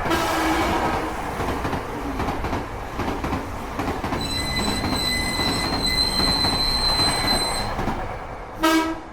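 Added train sound effect: a train running on the rails with a steady rumble, a high steady wheel squeal from about four seconds in until near the end, then a short horn note just before the end.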